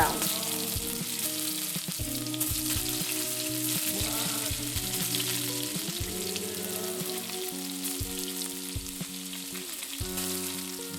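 Marinated chicken pieces frying in hot oil in a pan, a steady sizzle with scattered clicks of stirring, as they cook until brown.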